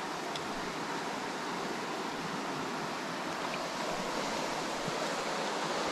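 Small mountain creek running over rocks, a steady rush of water with no change in level.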